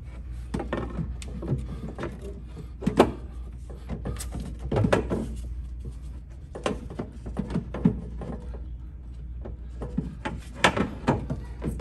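Irregular clacks and knocks as a magnetic slotted shelf panel is fitted and pressed back into a display fixture, the sharpest about three seconds in and again near the end, over a steady low hum.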